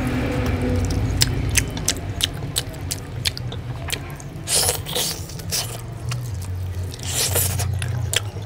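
Close-miked eating of meat and rice by hand: wet chewing and lip-smacking with many sharp mouth clicks, and two louder squelching sounds about halfway and near the end, over a steady low hum.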